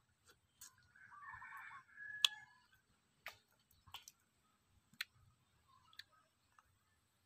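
Scattered sharp clicks and snaps of a passion fruit's rind being broken and peeled by hand, the loudest about two seconds in, with further single snaps about once a second after. A short wavering call sounds between one and two seconds in.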